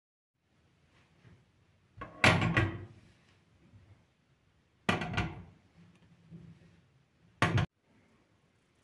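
Three short bursts of knocking and clattering, about two, five and seven and a half seconds in, the first the loudest, like household handling sounds such as a door or cupboard being opened and shut.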